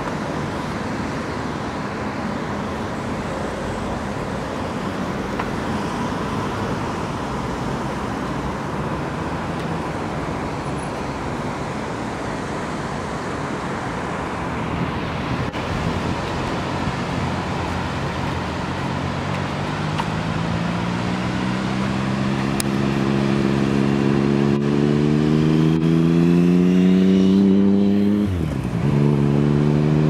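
Steady rushing road noise, then a motor vehicle accelerating close by. Its engine pitch climbs for several seconds, drops sharply at a gear change near the end, and starts climbing again.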